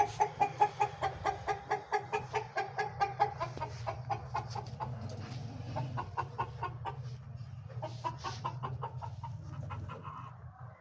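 A bird giving a rapid run of short clucking calls, about five a second, that loosens after a few seconds into scattered calls, over a steady low hum.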